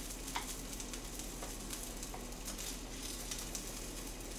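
Faint, steady sizzling of food cooking on a gas stove, with a few light clicks of chopsticks against containers and a plate.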